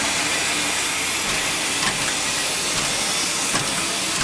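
Steam locomotive No. 734, a 2-8-0 Consolidation, hissing steadily with escaping steam, with a couple of faint clicks.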